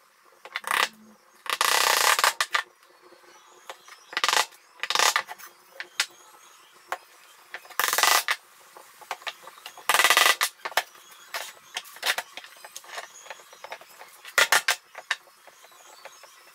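Wooden frame pieces and a hammer being handled on a workbench while a frame is fitted together: scattered sharp knocks and clatter, with a couple of longer scrapes as wood slides across the bench.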